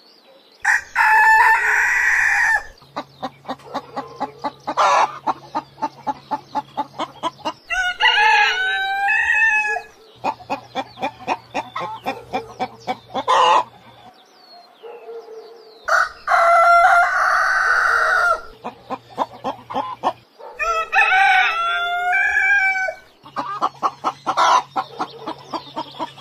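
A flock of chickens: hens clucking in quick runs of about four clucks a second, broken by roosters crowing about four times in long, loud calls.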